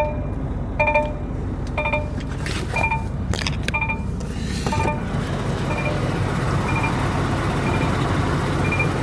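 A semi truck's low-air-pressure warning beeping about once a second over the running engine, signalling low brake air pressure. About halfway through the beeps grow fainter while a broad engine noise rises a little.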